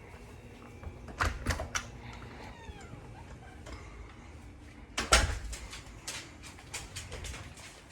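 Several sharp knocks and clicks: three about a second in, then a louder cluster about five seconds in.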